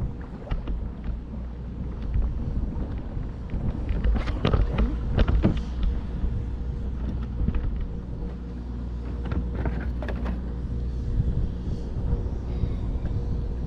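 Steady low rumble of wind on the microphone out on the water, with a faint steady hum and scattered knocks and clicks, clustered about four to six seconds in and again near ten seconds.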